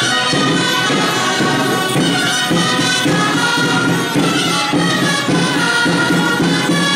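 Traditional Catalan street-band music: shrill reed instruments (gralles) playing a lively folk dance tune over a steady drum beat.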